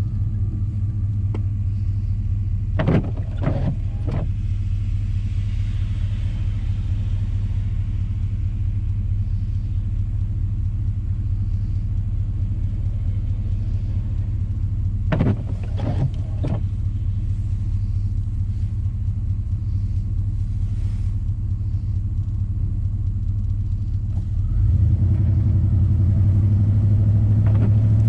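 Steady low engine and road drone of a 1990 Chevy 3/4-ton four-wheel-drive pickup heard from inside the cab while driving. Two short clusters of three or four clicks or knocks come a few seconds in and about halfway through, and the drone grows louder near the end as the truck picks up speed.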